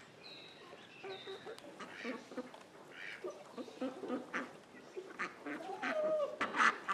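Farmyard poultry calling: a duck quacking repeatedly among clucking chickens, with short calls coming thicker and louder in the last couple of seconds.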